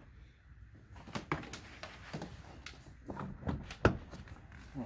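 Scattered knocks and clicks of a plastic car door trim panel being handled, pushed and lined up on the door by hand, with the sharpest knock a little before the end.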